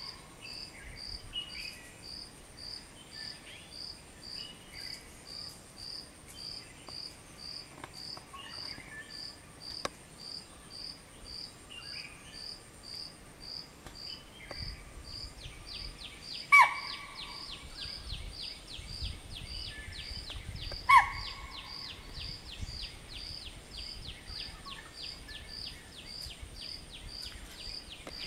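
Chital (spotted deer) giving two short, sharp alarm calls, about 16 and 21 seconds in, warning the herd of a person nearby. Insects chirp steadily underneath, about two pulses a second.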